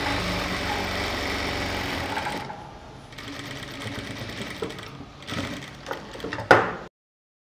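Industrial lockstitch sewing machine running as it stitches a folded fabric strip onto the seam of a silk skirt: a steady run for about two and a half seconds, then quieter running for a few seconds. A sharp noise comes near the end, and then the sound cuts off suddenly.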